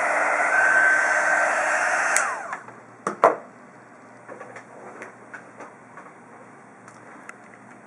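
Hot air gun blowing steadily while shrinking heat shrink tubing over a soldered wire joint, then switched off about two seconds in, its fan sound falling away. Two sharp knocks follow about a second later, then only small faint ticks.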